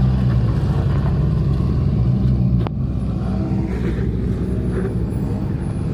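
Toyota Tacoma pickup's engine running at low revs, a steady low rumble, as the truck crawls an off-road obstacle. About two and a half seconds in there is a sharp knock, after which the engine sound drops a little.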